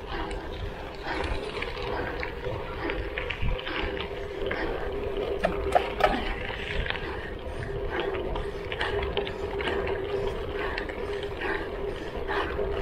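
Gravel bike rolling along a gravel road: tyres crunching over loose stones, with many small irregular clicks and rattles from the bike and a steady hum underneath.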